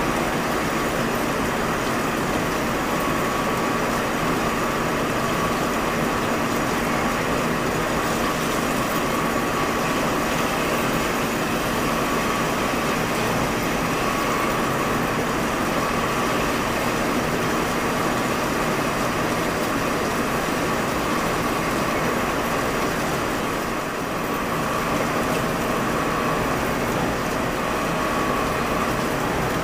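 KOMET KUB Centron indexable insert drill, 25 mm, deep-hole drilling C22 steel on a DMG Mori CNC lathe, with the workpiece spinning at 1450 rpm under flood coolant: a steady cutting and coolant-spray noise with a low hum. A higher tone comes and goes every few seconds.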